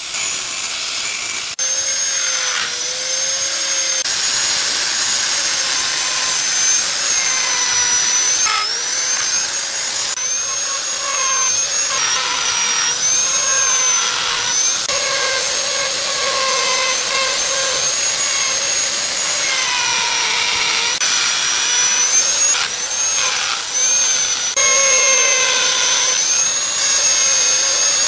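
Power tools whining at high speed: an angle grinder sharpening a small carving bit, then a handheld power carving tool cutting into a wood block, its whine dipping in pitch and recovering again and again as the bit bites and eases off. A few abrupt cuts break the sound near the start.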